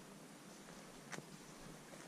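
Near silence: a faint steady hiss with one soft click about a second in.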